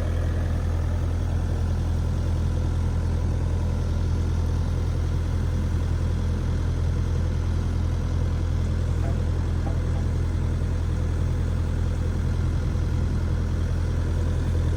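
Kubota mini excavator's diesel engine running steadily with a constant low hum.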